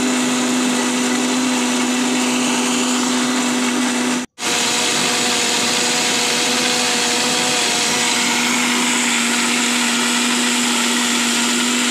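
Electric mixer grinder running steadily as it grinds arua rice, a loud even motor hum with a high whine, cut off for a split second about four seconds in.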